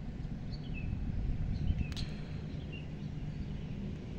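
Small birds chirping, several short, high chirps that drop slightly in pitch, over a low, steady outdoor rumble, with one sharp click about two seconds in.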